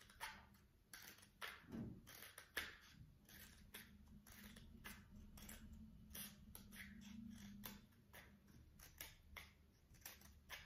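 Scissors cutting into a cardboard paper towel roll: a faint run of short snips, roughly two a second.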